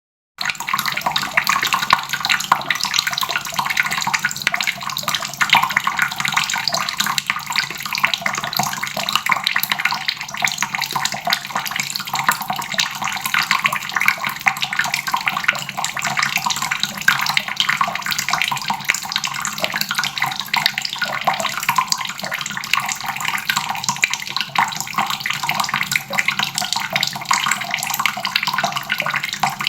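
Water running steadily from a faucet into a basin, a continuous dense splashing that starts about half a second in.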